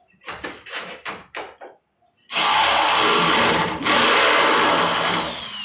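Electric drill boring a hole through a wooden door for a doorknob. A few short bursts come first, then two long runs of drilling about two seconds in, each with a high whine that rises and then falls in pitch. The second run fades out near the end.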